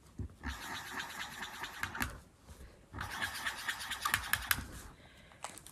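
Marker pen scratching on paper as an eye is drawn in: two spells of quick scratchy strokes, each about two seconds long, with a short pause between them.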